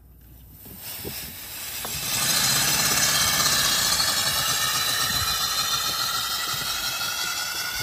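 Paper flat-twin compressed-air engine running on air from a balloon: a steady hiss of air rushing through it with a fast mechanical flutter, building up over the first two seconds.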